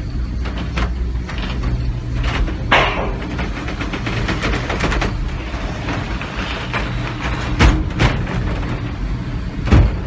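Wooden cable car running on its inclined rails, heard from inside the car: a steady low rumble and hum with wooden clacks and rattles. There are several sharp knocks, most of them in the second half.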